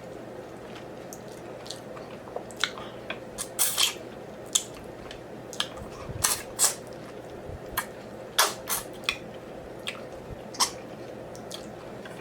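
Close-miked chewing and lip smacking of someone eating a plate of home-cooked soul food. It comes as irregular short, sharp clicks over a faint steady hum.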